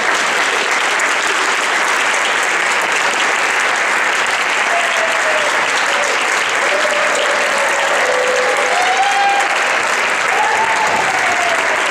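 Audience applauding steadily, with a few voices calling out over the clapping in the second half.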